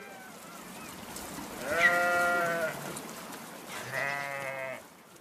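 Sheep bleating in a penned flock: two loud calls, each about a second long and about two seconds apart, with fainter bleats from the flock in between.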